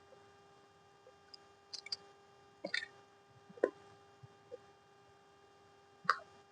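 A few short, scattered clicks and taps over a steady faint hum.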